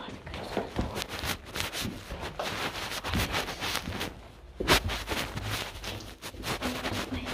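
Close, irregular rustling, crunching and knocking from people moving about, with one sharper knock a little past halfway.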